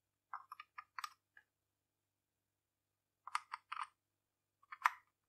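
Small plastic-and-metal clicks and scrapes of a USB-A plug being fumbled at and pushed into the USB port of a compact DC mini UPS. They come in three short clusters, the sharpest click near the end as the plug goes in.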